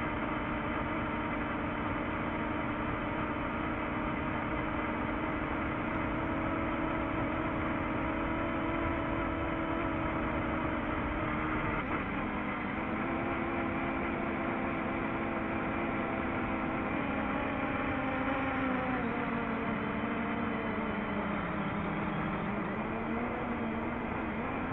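DJI FPV drone's motors and propellers running in flight: a steady, multi-toned whine over wind noise, its pitch sliding slowly down for a few seconds near the end as the throttle eases off on a descent.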